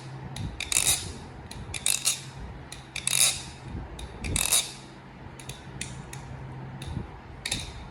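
Baliplus Tsunami clone balisong being flipped: its metal handles clack against the blade and each other in quick clusters of clicks about once a second, with a longer gap late on.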